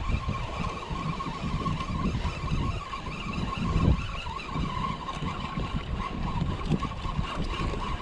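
Wind buffeting the microphone in gusty low rumbles, strongest about four seconds in, over a thin steady high whine.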